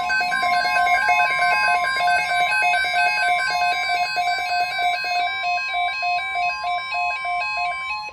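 NOAA Weather Radio's steady 1050 Hz warning alarm tone, sounding together with a weather alert radio's electronic alarm: a fast, buzzy beeping that alternates rapidly between pitches. Both cut off together at the end. The tone is the signal that a severe weather watch or warning message is about to be read.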